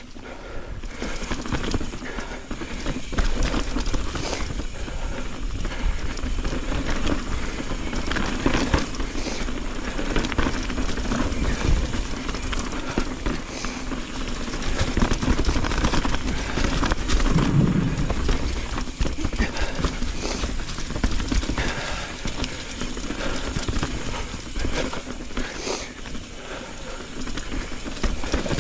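Mountain bike riding down a rocky, leaf-covered trail: tyres rolling over dirt, leaves and rock slabs, with frequent knocks and rattles from the bike over bumps and a steady low rumble of wind on the microphone.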